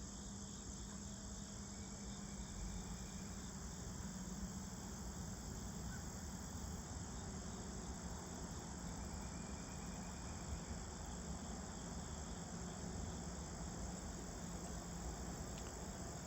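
Crickets chirring steadily in a continuous high-pitched chorus, with a faint steady low hum underneath.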